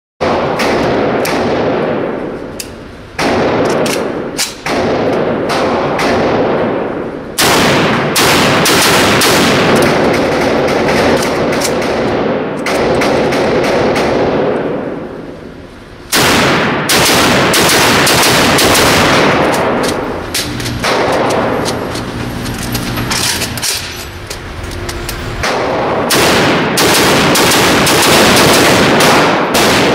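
Rifle fire in rapid strings of shots, with long echoes trailing between the strings; it starts abruptly.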